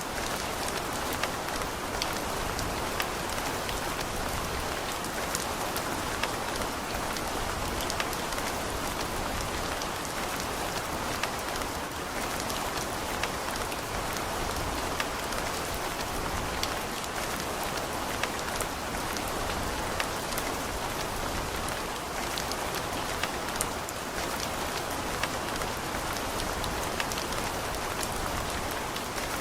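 Steady rain falling, an even hiss with scattered sharp drips and drop impacts throughout.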